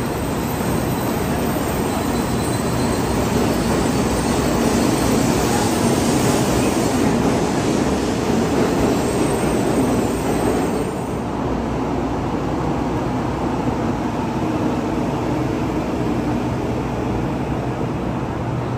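Shinkansen bullet train running, a steady rushing noise that drops and grows quieter about eleven seconds in.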